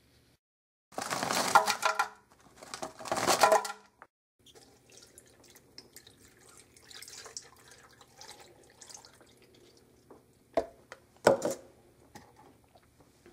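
Almond milk poured from a carton into a blender jar onto spinach and strawberries, splashing loudly twice in the first few seconds, then a softer trickling pour, with a few sharp knocks near the end.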